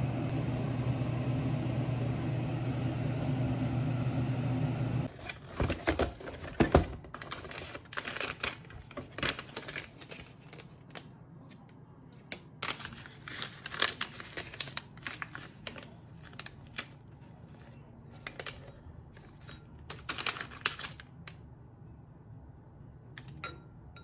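A steady low hum like a fan runs for about five seconds and then cuts off. Then comes the crinkling and tearing of a foil-and-plastic tea sachet being handled and opened, in scattered sharp crackles and rustles.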